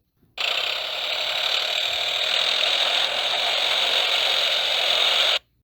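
Recorded excavator sound effect: a machine engine running with a rattling, clanking noise. It starts about half a second in, holds steady, and cuts off suddenly near the end.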